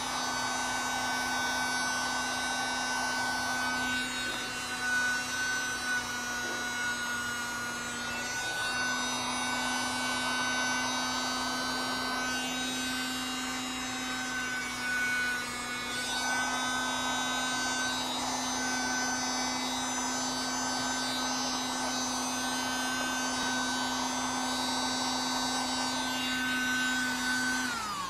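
Tiny USB-powered handheld vacuum running steadily, with a high motor whine and a rush of air that swells and fades several times as the nozzle moves. It is switched off at the very end, and its whine drops away in pitch.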